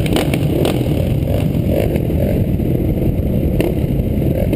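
A line of motocross bikes' engines running and revving together at the start gate, held on the throttle before the gate drops: a loud, dense, steady rumble. A few sharp clicks in the first second and once more near the end.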